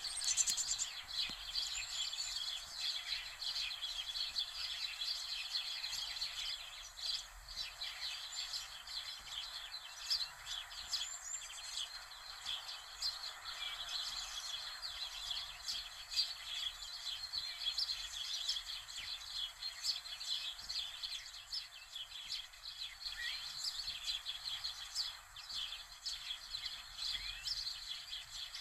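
Birds chirping continuously, many short calls overlapping, over a steady hiss.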